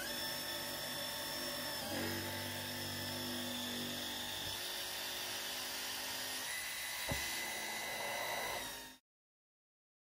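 Dyson V15 Detect cordless stick vacuum running with a steady high-pitched whine while it sucks up a large clump of long hair. A lower hum joins about two seconds in for a couple of seconds, and there is a brief knock about seven seconds in. The sound cuts off abruptly about nine seconds in.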